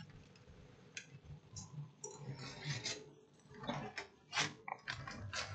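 Faint scattered clicks and light taps of hands handling a circuit board and its cables on a workbench, over a faint steady low hum.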